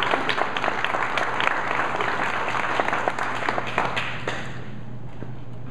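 A small audience applauding, the clapping dying away about four seconds in.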